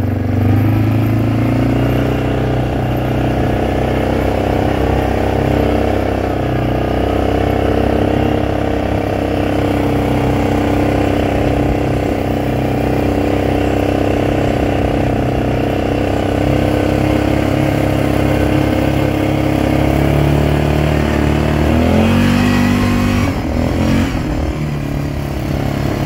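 ATV (four-wheeler) engine running steadily while riding along a grassy trail. About three-quarters of the way through, the engine note dips and then rises again.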